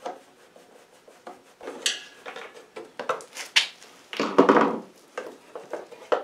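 A screwdriver and hands working under an air compressor's motor shroud to take out small screws: scattered clicks, scrapes and rattles of tool on metal and plastic, loudest about four seconds in.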